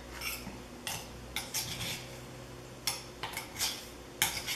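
Metal spoon scraping and clinking against the inside of a stone mortar as it turns over pounded chilli-coconut sambol, in about nine short uneven scrapes.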